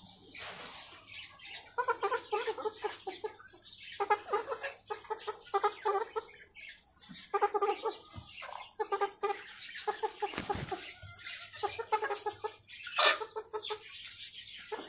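Young chickens clucking in quick runs of short repeated calls, several runs a second or two apart.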